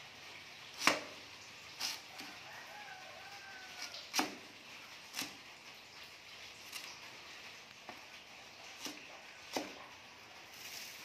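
Cleaver chopping vegetables on a plastic cutting board: about eight irregular knocks roughly a second apart, the first the loudest.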